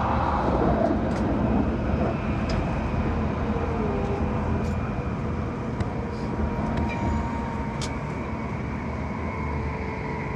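Tokaido Shinkansen train running, heard inside the passenger cabin: a steady rumble and rushing noise with a faint whine, slowly easing a little in loudness, with a few small clicks.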